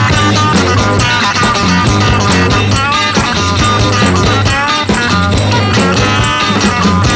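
Rock music with electric guitar and a steady bass beat.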